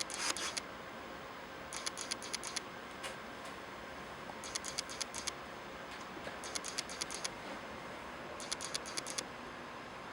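Short bursts of rapid plastic clicking and scratching, repeating about every two seconds, from hands working a copier developer unit to spread freshly poured developer powder through it.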